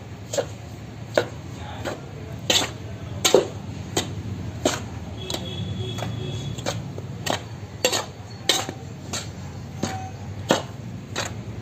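A metal spoon stirring dry ground spice powder in a large metal bowl, clinking and scraping against the bowl in irregular sharp knocks about once a second.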